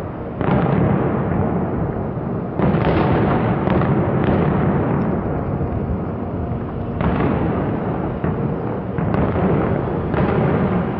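A fireworks display: many bursts overlap into a continuous din of bangs and crackle. It swells in fresh waves about half a second, two and a half, seven and ten seconds in.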